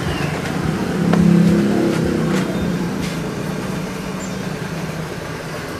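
A motor vehicle's engine on the street passing by, loudest about a second in and slowly fading, over steady traffic noise.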